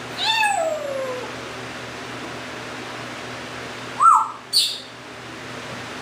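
Timneh African grey parrot calling: a drawn-out call that falls in pitch just after the start, then two short sharp calls around four seconds in, the second a high whistle.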